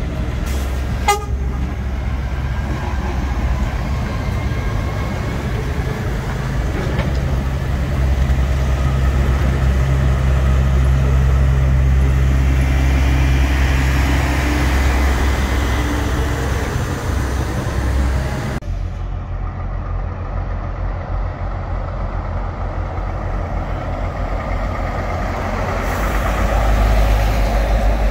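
Articulated lorries' diesel engines rumbling as they pull out and pass close by, with a short horn toot about a second in. The rumble peaks as the first lorry turns past, then, after a cut, a second lorry's engine swells as it passes near the end.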